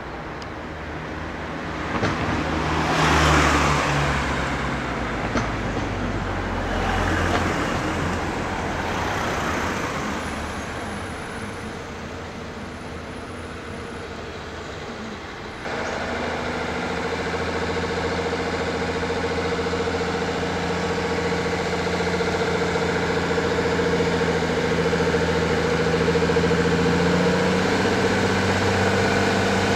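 Road traffic passing slowly, followed by a heavy Mercedes-Benz lorry's diesel engine running steadily at low speed as it creeps along the road.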